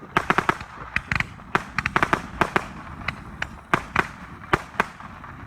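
Fireworks going off: a rapid, irregular run of sharp cracks and pops, spacing out near the end.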